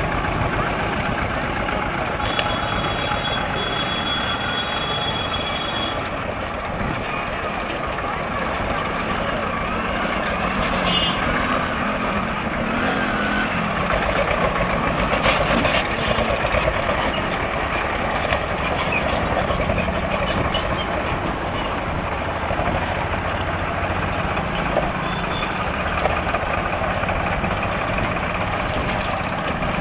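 Busy road traffic at a railway level crossing as a train passes: a steady mix of engines and road noise with a high vehicle horn beeping for about four seconds a couple of seconds in, and a run of sharp metallic clanks about halfway through.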